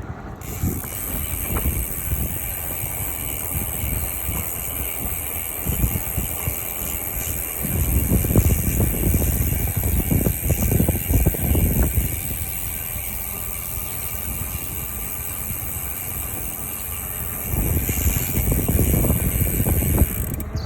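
Hope Pro 4 rear hub's freehub buzzing steadily as the wheel coasts, starting suddenly about half a second in and stopping just before the end, over a low rumble that swells twice.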